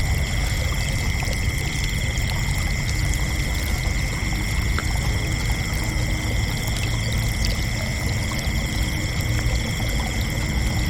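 Crickets chirping in a dense, unbroken chorus, several steady high pitches layered together, over a low steady rumble.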